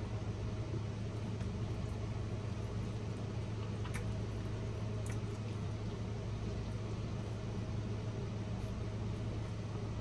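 Steady low hum with an even faint hiss, and a couple of faint soft clicks from chewing fried chicken about four and five seconds in.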